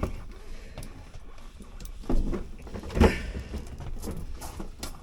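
Knocks, bumps and scrapes as a fridge is manoeuvred by hand in a motorhome, with a heavy thump about three seconds in and a smaller one just before it.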